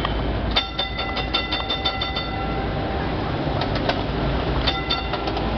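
Istanbul's nostalgic Taksim–Tünel tram running with a steady low rumble while its bell is rung in quick repeated strokes to warn pedestrians: a long run of strokes about half a second in, and shorter runs later.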